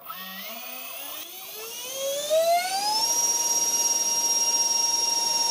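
Twin 7000kv brushless electric ducted fans on a 3S lipo spooling up with a rising whine over about three seconds, then holding a steady high-pitched whine.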